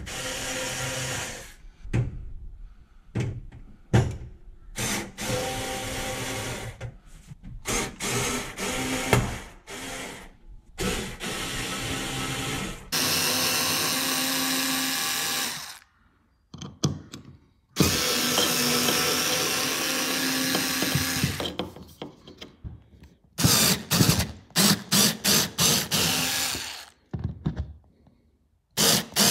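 Ryobi 4 V lithium cordless mini screwdriver running in a series of bursts as it drives screws into timber and wall. There are two longer runs of about three seconds each in the middle, then a quick string of short bursts near the end.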